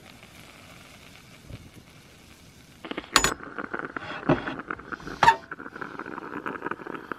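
Stainless-steel Bialetti stovetop moka pot clinking: its metal lid knocks shut about three seconds in, followed by further metal and glass clinks as the pot is lifted off the gas stove's grate and coffee is poured into a glass of milk.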